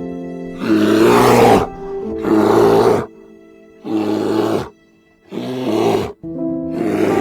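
A large animal calling loudly five times in a row, each call rough and about a second long, over background music.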